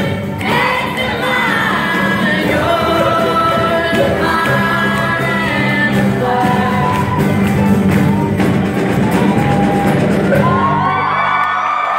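Live band and a large group of singers playing and singing the closing bars of a pop-rock song, with whoops and shouts over the top. The band drops out near the end as cheering takes over.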